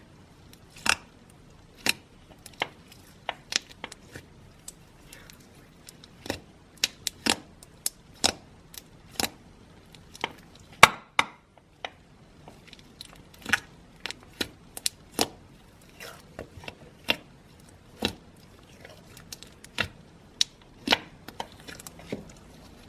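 Slime being played with by hand, making irregular sharp pops and clicks about one or two a second, with one louder pop near the middle.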